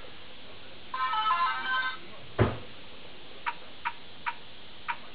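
LEGO Mindstorms NXT brick's built-in speaker: a second-long run of electronic tones about a second in, then a single thump, then four short, even beeps as the brick's buttons are pressed.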